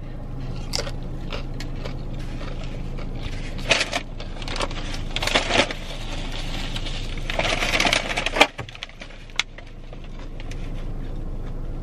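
Paper bag and napkins crinkling and rustling in hand, in several stretches, over a steady low hum inside a car cabin. Near the end, a couple of sharp clicks as a plastic water bottle is picked up.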